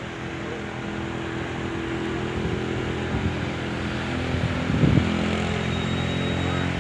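An engine running steadily, slowly growing louder, with a brief louder burst about five seconds in.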